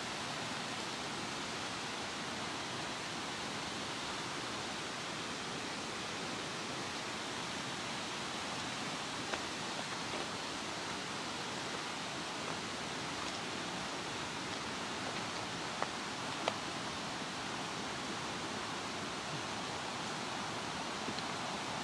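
Steady rush of a fast-flowing river's rapids, with a few faint short clicks now and then.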